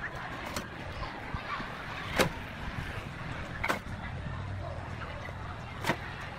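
Hard red hexagonal paving blocks clacking against each other as they are picked up and set by hand: about four sharp knocks, a second or two apart, over a steady background hiss.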